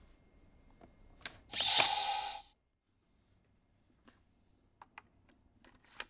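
Toy transformation belt (Bandai CSM V Buckle with Verde's Advent Deck): a plastic button click, then a short electronic sound effect from its speaker lasting under a second. A few faint clicks follow near the end.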